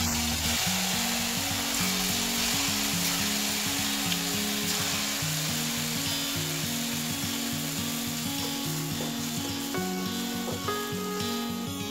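Tofu balls deep-frying in hot oil in a wok: a steady, dense sizzle that eases slightly in the second half. Background music plays with it throughout.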